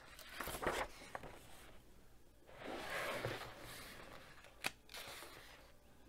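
Paper pages of a paperback colouring book turned by hand: a short rustle, then a longer papery swish about halfway, followed by a single sharp tick.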